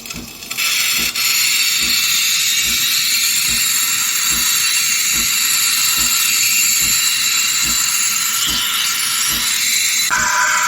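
De'Longhi Dedica Arte espresso machine's steam wand hissing steadily, with a soft low thump repeating under it about every 0.6 s. Near the end the hiss drops lower in tone.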